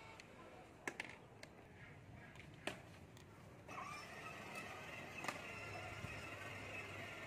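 A few faint clicks, then from about four seconds in a steady electric whir from a child's battery-powered ride-on toy car driving over concrete.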